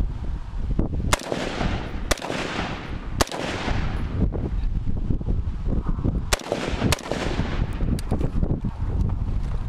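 AR-15 rifle firing single shots: five sharp reports, three about a second apart near the start and two about half a second apart past the middle, each with a short echo trailing off. A low rumble of wind and movement on the microphone fills the gaps between shots.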